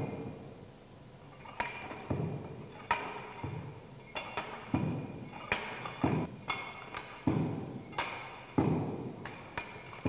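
Hand-operated Proctor compaction rammer dropping again and again onto moist soil in a steel mould, compacting a layer. Each blow is a dull thud with a short metallic ring. After a short pause at the start, about a dozen blows come a little faster than one a second.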